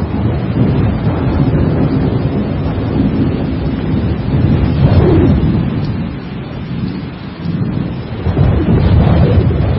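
Thunderstorm: rolling thunder over steady rain. The rumble eases about six seconds in and swells again about two seconds later.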